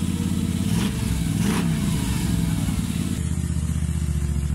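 Moto Guzzi transverse V-twin engine running, blipped in quick revs that rise and fall about a second in. Near the end it runs at a steadier, lower idle.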